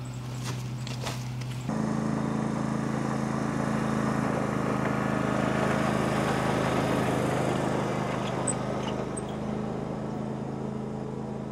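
Compact tractor engine running steadily, a low even drone that gets a little louder mid-way and eases off near the end.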